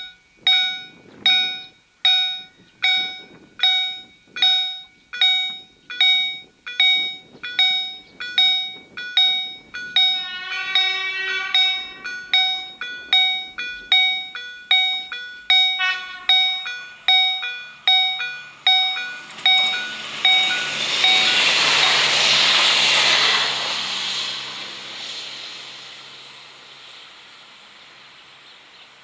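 Level-crossing warning bells (EHL-S10) of a COB-63A crossing system ringing steadily at about one and a half strikes a second, with a rapidly repeating second tone over the ringing about ten to twelve seconds in. The ringing stops about nineteen seconds in as a train passes: a rush of noise that swells, peaks and fades, with a low drone underneath.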